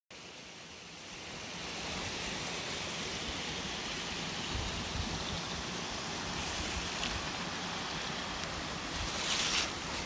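A small mountain stream rushing steadily over rocks below the path. It fades in over the first two seconds, with low rumbles of wind on the microphone and a brief rustle near the end.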